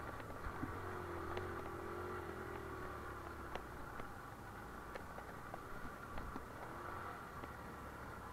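Vehicle driving slowly along a rough gravel mountain track, engine running at low revs. A faint change in engine pitch is heard in the first few seconds, and scattered sharp clicks and knocks come from stones and bumps under the wheels.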